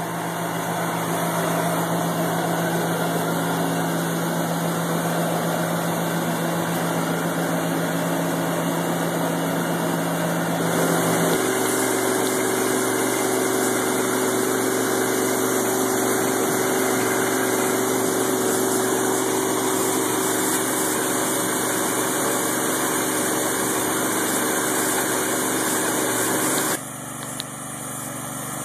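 John Deere 9660STS combine running steadily while harvesting wheat, a mechanical drone heard from inside the cab. The pitch of the drone shifts about eleven seconds in, and the sound drops away suddenly near the end.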